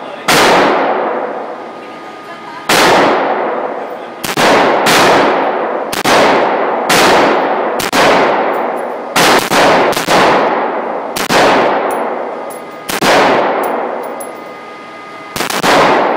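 Bushmaster AR-15 rifle firing single semi-automatic shots at an uneven pace, about a dozen in all, sometimes two or three in quick succession. Each sharp crack is followed by a long echo.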